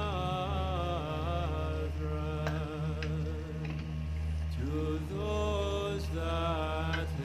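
Background music: a wavering, chant-like vocal melody over a steady low drone.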